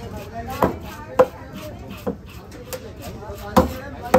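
A long, heavy fish knife chopping through a large fish into a wooden log block: about five sharp chops at uneven intervals.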